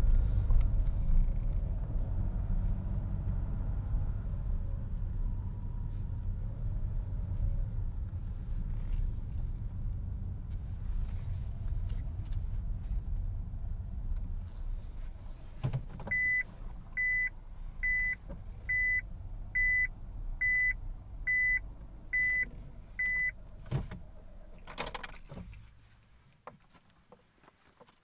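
Inside a car's cabin: the low rumble of the car driving, fading as it slows. Partway through comes a run of about nine short, high electronic beeps, roughly one a second. A few clicks follow, and the rumble dies away near the end.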